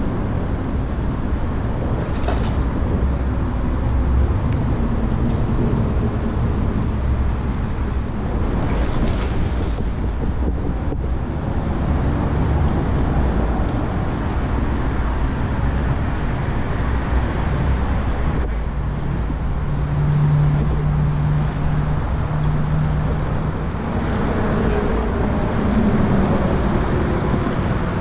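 Steady rumble of road traffic on the overhead highway bridges, mixed with low wind noise on the microphone. A steady engine hum joins for about five seconds roughly two-thirds of the way in.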